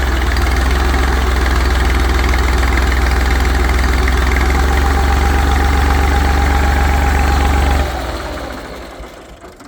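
Tractor engine running steadily at a low speed, then dying away about eight seconds in.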